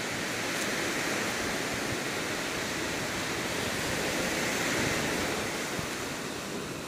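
Sea surf washing in on a shore: a steady rush of waves that swells over the first second, is loudest about five seconds in, then eases off.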